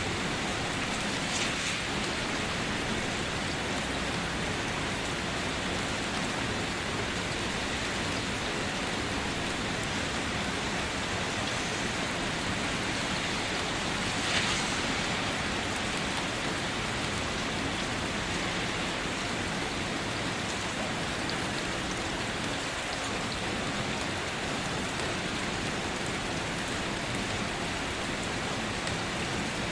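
Steady heavy rain falling and pattering on surfaces, an even hiss, with two brief louder splashes, one near the start and one about halfway through.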